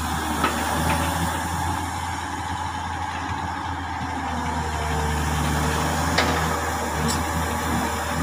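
Komatsu PC200 hydraulic excavator's diesel engine running steadily as it digs, swings and dumps earth and ore, with a few short sharp knocks.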